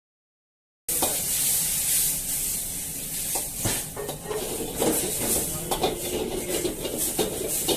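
Food sizzling in a hot wok while a metal spatula stirs it, with frequent scraping clinks and knocks of the spatula against the pan. The sound starts abruptly about a second in.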